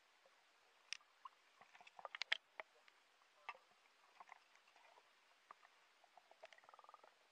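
Faint scattered underwater clicks and knocks picked up by a submerged camera, with a cluster of sharper clicks about two seconds in and a short rapid ticking buzz near the end.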